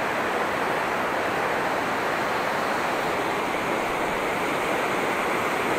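Steady rushing of a fast mountain river heard from high above on a footbridge, an even wash of water noise with no breaks.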